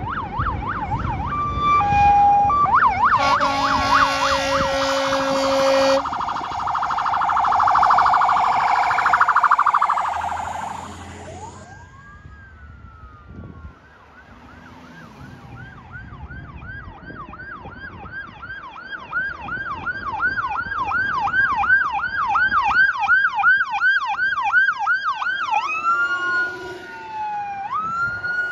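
Fire apparatus sirens on an emergency run: a fire engine passes with its siren yelping and engine rumbling, giving a long horn blast about three seconds in, followed by a slower wail. After a short lull a second emergency vehicle's siren yelps, rising and falling two to three times a second, then changes to slower sweeps near the end.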